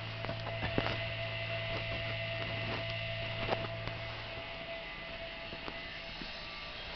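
A steady low hum that stops about two-thirds of the way through, with a few faint clicks.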